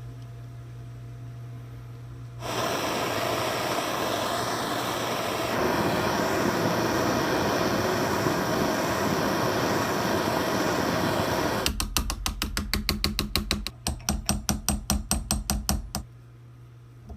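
A gas torch hisses steadily for about nine seconds as it heats the rust-seized jaw of an old adjustable wrench. Then come rapid, even hammer taps on the metal, about six a second, in two runs with a short break between: heat and percussion to break the corroded jaw loose.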